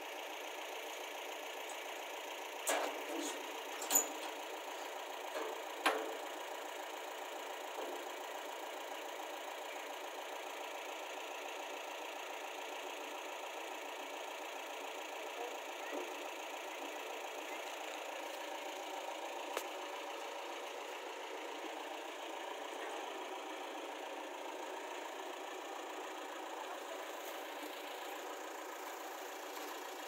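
An engine idling steadily, with a few sharp clicks and knocks in the first six seconds.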